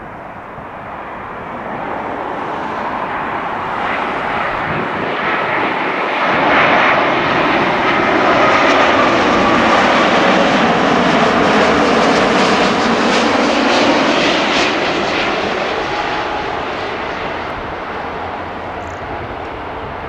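British Airways Boeing 787 Dreamliner with its Rolls-Royce Trent 1000 turbofans passing low overhead on landing approach, gear down. The jet roar swells to a peak a third of the way in, holds, then fades as the plane passes, its whine dropping in pitch.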